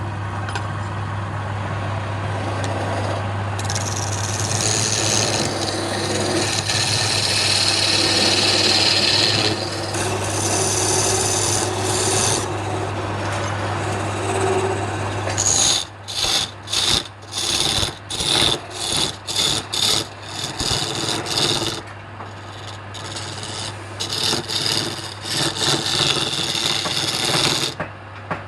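Wood lathe running with a steady motor hum while a tool scrapes and cuts the spinning wood. Midway the cutting comes in short strokes about two a second, then runs steadily again and stops shortly before the end, leaving the lathe humming.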